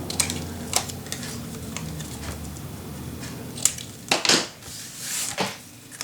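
Paper being trimmed shorter: a few sharp clicks, then several short rustling cuts about four to five and a half seconds in.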